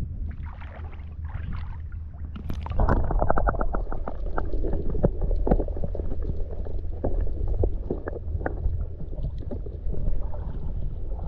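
Water heard through a camera held underwater in a shallow creek: from about three seconds in, a loud muffled rumble and gurgling with many scattered sharp clicks, after a quieter open-air start.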